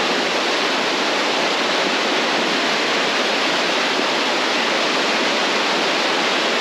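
Fast, muddy river rushing through rapids, a steady, even sound of churning water with no breaks.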